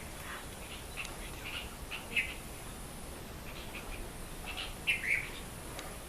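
Songbird chirping in the garden: brief chirps in scattered clusters every second or so, the loudest cluster about five seconds in.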